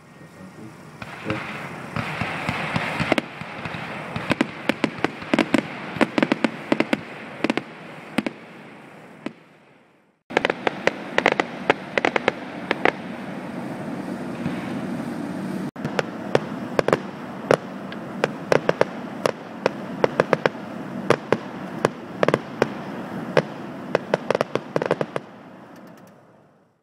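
Fireworks display: rapid, dense popping and crackling of aerial bursts over a continuous noisy background. There is a brief break about ten seconds in, and it fades out near the end.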